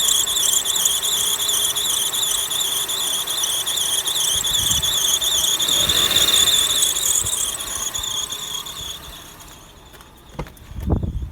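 Accessory drive belt on a Subaru EZ30 flat-six engine whistling: a high, wavering squeal that fades away about nine seconds in. A few low thumps follow near the end.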